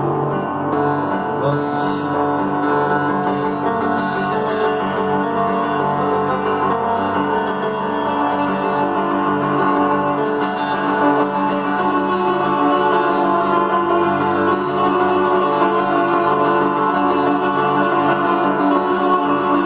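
Music with guitar and keyboard, steady throughout.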